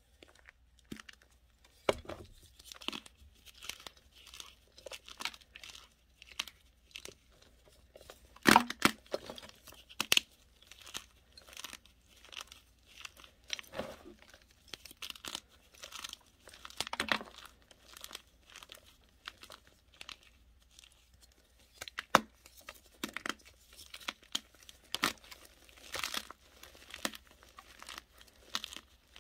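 Hands crushing and crumbling blocks of powdery chalk: a steady run of irregular soft crunches and crackles, with a few sharper, louder snaps, the loudest about eight and a half seconds in and again about twenty-two seconds in.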